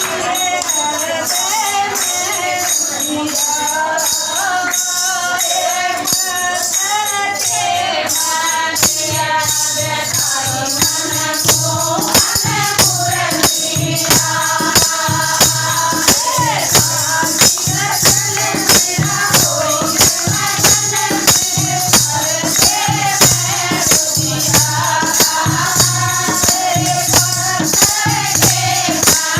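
Hindi devotional bhajan sung by a group of voices, with a steady beat of jingling hand percussion. A low drum beat joins about nine seconds in.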